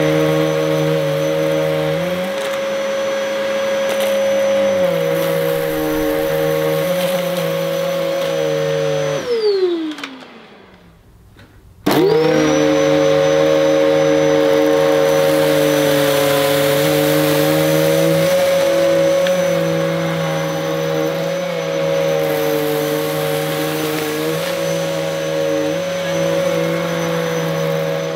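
Electrolux Intensity upright vacuum cleaner running on carpet, its motor pitch shifting a little as it is worked. About nine seconds in it is switched off and winds down to near silence, then about two seconds later it is switched back on and spins straight up to speed.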